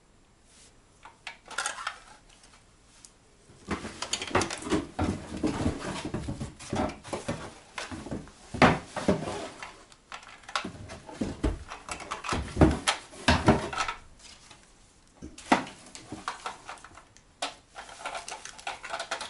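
Small hard objects clattering and clinking as they are handled and rummaged through, like dishes and utensils knocking together, with a run of knocks from about four seconds in until about fourteen seconds in.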